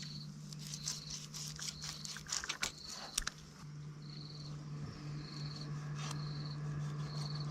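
An insect chirping in short, high, buzzy pulses roughly once a second, over a steady low hum, with a few clicks and scrapes near the middle.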